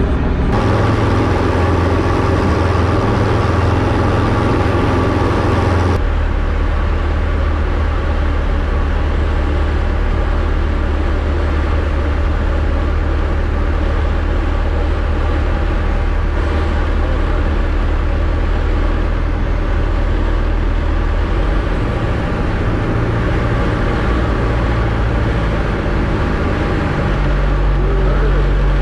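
Diamond DA20 light aircraft's piston engine and propeller droning steadily, heard inside the cockpit. The engine note changes about 21 seconds in.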